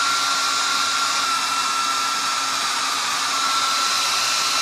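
Hand-held hair dryer blowing steadily with a constant high whine, held on a fire alarm heat detector to heat it until it trips.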